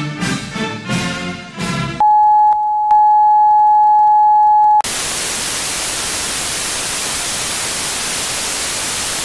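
A television station signing off. Orchestral music with brass ends about two seconds in. A loud, steady, single-pitch test-card tone follows for about three seconds, then cuts abruptly to the steady hiss of TV static (snow).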